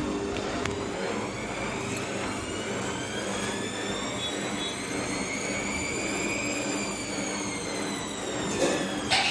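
Bosch washing machine drum motor running, its whine rising in pitch for several seconds and then falling again over a steady low hum, with a short knock near the end.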